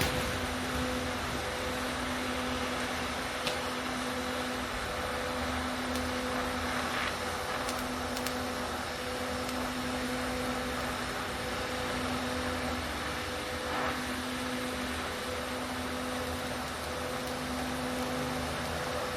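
Electric arc welding of a steel plate with 308 stainless filler: a steady hiss with an even low hum and a few faint ticks.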